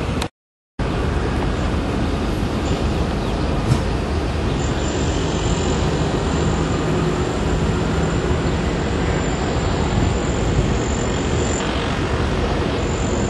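Steady rumbling rush of a motor yacht under way: the engines droning beneath wind and water noise on deck. The sound drops out for about half a second just after the start.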